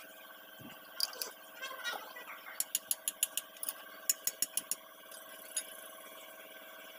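Sharp metal clicks and clinks of a spanner working a bolt on a truck's steering knuckle: a few at first, then a quick run of about a dozen between two and five seconds in. A steady hum underneath.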